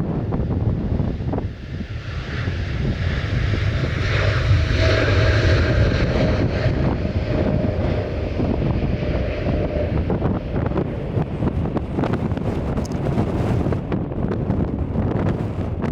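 Jet airliner passing, its engine noise swelling to a peak about five seconds in with a steady whine, then slowly fading. Wind buffets the microphone throughout.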